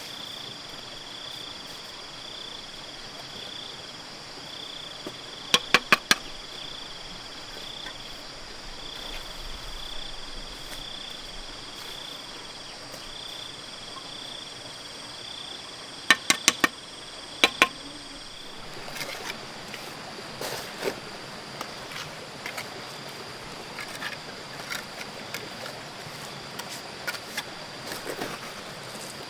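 Insects chirping in a steady, pulsing high trill, with two clusters of loud, sharp knocks in quick succession, the first about six seconds in and the second near sixteen seconds. The trill fades out about two-thirds of the way through, leaving scattered lighter clicks and handling noises.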